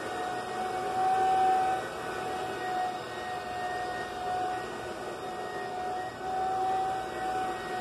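Electric floor burnisher running with a steady high motor whine that wavers slightly in pitch. It swells louder twice, about a second in and again near six seconds.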